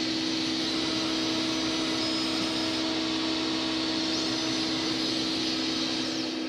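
Versalaser laser engraver running: a steady machine hum with a fan-like whoosh. Faint whines slide up and down in pitch about four seconds in.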